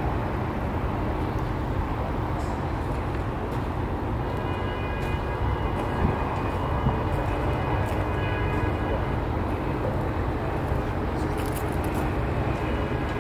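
Steady low rumble of a railroad bascule bridge's lifting machinery as the leaf rises. A faint steady whine joins about four seconds in.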